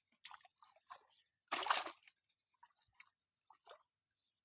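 Wet squelching and sloshing of water and mud: a run of short splashes and drips, with one louder splash about a second and a half in.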